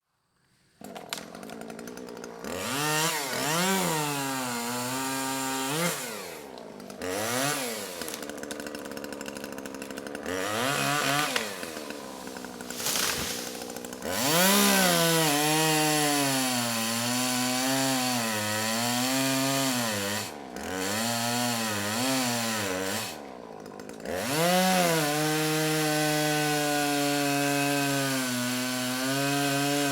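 Chainsaw engine starting about a second in and revved in several short bursts, then held at high revs for long stretches with a wavering pitch as it cuts small trees, dropping back to a lower pitch briefly twice before revving up again.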